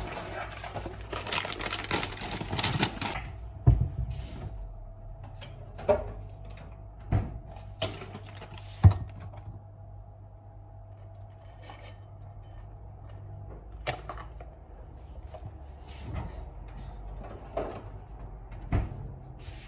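Dry Oreo cereal rattling into a bowl for about three seconds, then scattered knocks and clicks of kitchen items being handled and set down.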